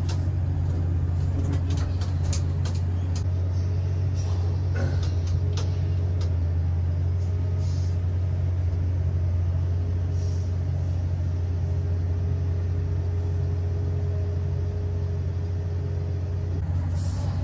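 Komatsu PC3000 mining excavator running under load, heard from inside the operator's cab: a loud, steady low drone from its power unit and hydraulics. A faint steady whine sits over it through the second half.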